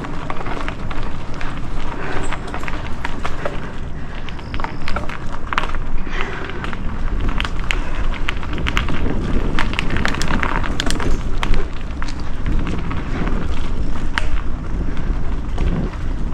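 Mountain bike ridden along a dirt trail: steady wind rumble on the microphone, tyres on the dirt, and many sharp clicks and knocks as the bike rattles over the bumps.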